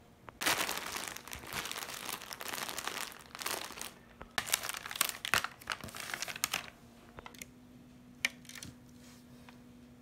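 Plastic courier mailer bags crinkling as a hand presses and handles them, from about half a second in until nearly seven seconds in, with a short lull around four seconds. After that only a few faint rustles and one sharp crinkle remain.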